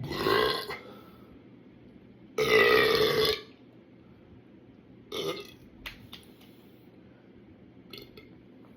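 A person burping three times: a short burp at the start, a longer, louder one about two and a half seconds in, and a brief one about five seconds in.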